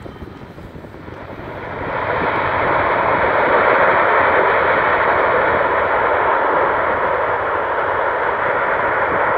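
Boeing 727's three Pratt & Whitney JT8D turbofan engines on the landing roll, rising over the first two seconds to a loud, steady jet noise and holding there, typical of the engines spooling up in reverse thrust just after touchdown.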